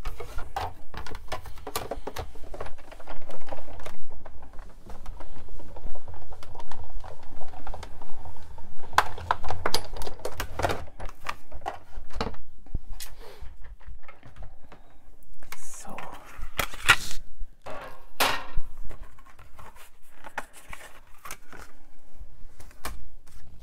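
Big Shot die-cutting and embossing machine hand-cranked, its rollers pulling the plastic cutting plates and an embossing folder through. A low rumble comes with irregular clicks and knocks from the plates and the machine, which wobbles a little on the table.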